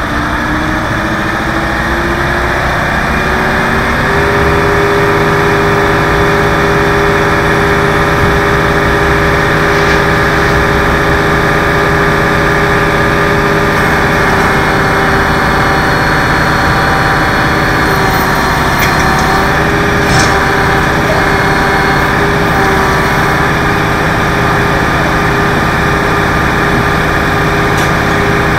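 Tow truck engine running. Its speed rises over the first four seconds to a raised idle, then holds steady while the truck's hydraulic boom is worked.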